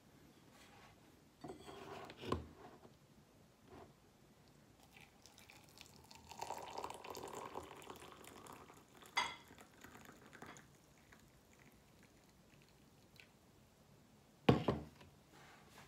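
Liquid poured from a stainless-steel electric kettle into a glass mug for about three seconds, with handling knocks and clinks around it. Near the end there is a heavy knock as the kettle is set down on the table.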